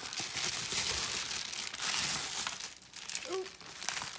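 Plastic packaging bag being crinkled and pulled open by hand, a continuous rustling that eases off for a moment about three seconds in.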